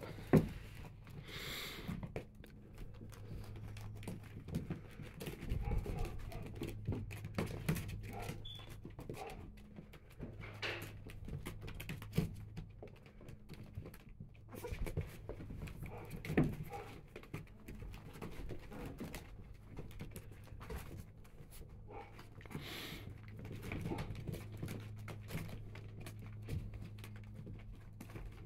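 Three-week-old Goldador puppies moving about in a plastic whelping pool, their claws tapping and scrabbling on the plastic floor and blankets in many small irregular clicks, over a steady low hum.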